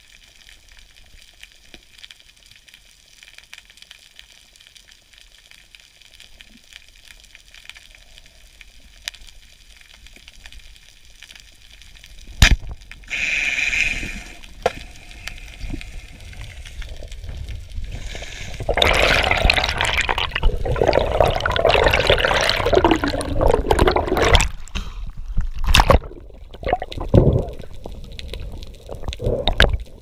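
Water noise on an underwater action camera: a low steady hiss with faint ticks, a single sharp click about twelve seconds in, then loud rushing, bubbling water noise through the second half that comes in several separate bursts near the end.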